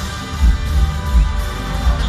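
Live banda music: a brass section, sousaphone and drum kit playing loudly together over a heavy bass beat.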